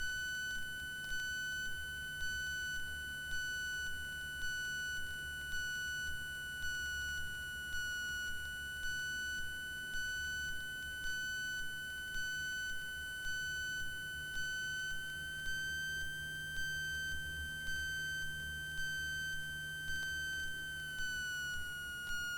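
Steady high-pitched electrical whine on a Cessna 172's intercom audio, shifting slightly in pitch about two-thirds through and again near the end, over a low hum with a faint tick about once a second.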